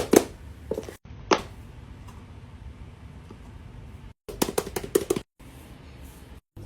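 Silicone pop-it fidget toy bubbles being pressed in, making sharp popping clicks: a few at the start, a single pop a little after a second in, then a quick run of about eight pops near the five-second mark.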